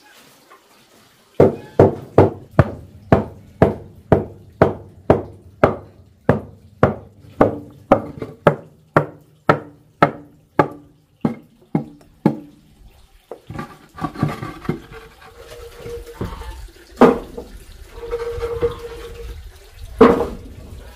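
A hammer knocks repeatedly down inside the pot opening of a brick cooking stove with a concrete top, about two blows a second, each with a short hollow ring. After about a dozen seconds the blows stop and give way to irregular scraping and a couple of single knocks.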